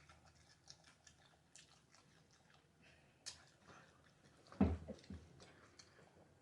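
A person chewing and biting into a sauced chicken wing, with small wet mouth clicks throughout. A louder low thump comes about four and a half seconds in.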